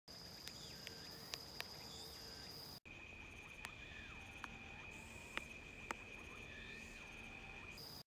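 Quiet chorus of autumn insects calling: a steady high trill that cuts off suddenly about three seconds in and gives way to a lower steady trill, with a few sharp clicks scattered through.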